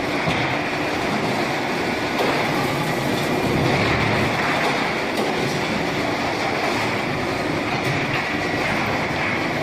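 QT12-15F concrete block making machine running: steady, loud mechanical noise, a little louder for a couple of seconds partway through.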